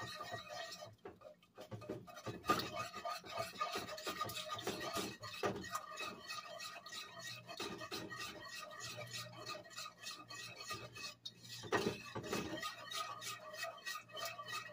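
A whisk scraping and rubbing against the inside of a nonstick saucepan in quick repeated strokes, stirring a thin orange marmalade and juice sauce.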